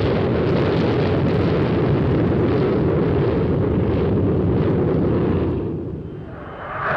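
Jet engines of a rear-engined twin-jet airliner at takeoff power during lift-off and climb-out, a loud, steady, rumbling noise that fades about six seconds in as the aircraft pulls away.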